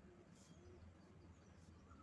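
Near silence: faint background noise with a low hum.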